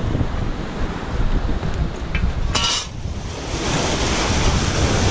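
Wind buffeting the microphone over the hiss of surf, with a short metallic clink about two and a half seconds in. The surf hiss swells up about a second after the clink.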